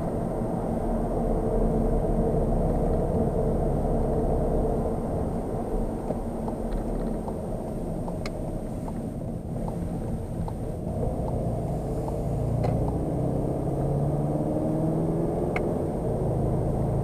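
The 2.0 TDI four-cylinder diesel of a Skoda Octavia RS 4x4 heard from inside the cabin, over tyre and road noise. The engine eases off through the middle and pulls again near the end, its note rising, with a few light clicks along the way.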